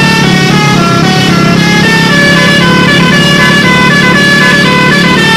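Tour bus's telolet horn, a set of multi-tone air horns, playing a fast tune of short stepping notes, several tones sounding together.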